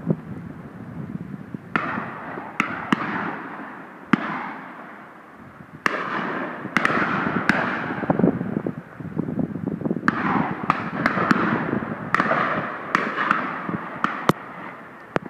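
Shotgun fire on a driven game shoot: more than a dozen shots at irregular intervals, some close and loud, others farther down the line, each trailing off in a rolling echo.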